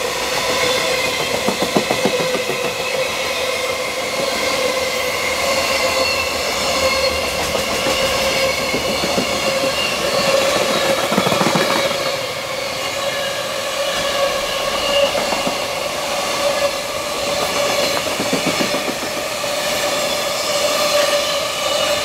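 Freight train's container wagons rolling past at speed: a steady rail roar with wheel clatter over the rail joints and a continuous ringing tone from the wheels and rails.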